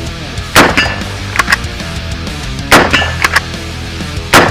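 Three rifle shots from a Warwick Firearms WFA1 straight-pull rifle in .300 Blackout, about two seconds apart. The last comes near the end. Each shot is followed by two quick metallic clicks as the straight-pull action is worked back and forward for the next round, over rock music with electric guitar.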